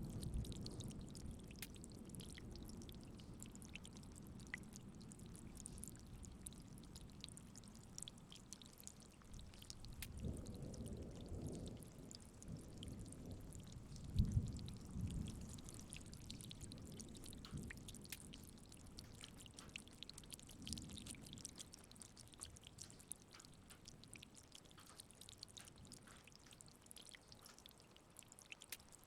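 Rain falling with scattered drips. The tail of a thunderclap dies away at the start, and low rumbles of distant thunder swell about ten and fourteen seconds in, the second one the louder.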